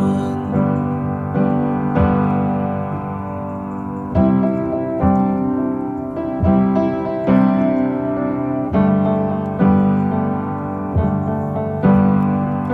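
Soundtrack music: slow solo piano chords, a new chord struck roughly every second and left to ring.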